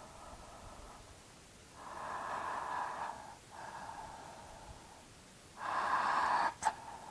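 A person yawning: long breathy drawn breaths through the open mouth and throat, the last and loudest ending in a sharp short click.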